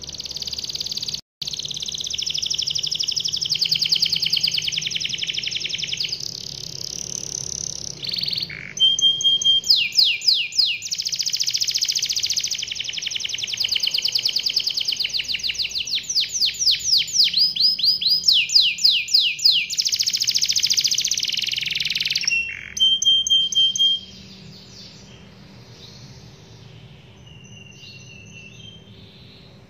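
Domestic canary singing a long rolling song of rapid trills and fast downward-sweeping notes. About 24 seconds in it drops to faint, scattered chirps.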